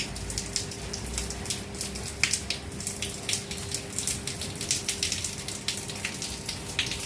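Rain falling, with many separate drops pattering close by at an irregular pace over a faint steady hum.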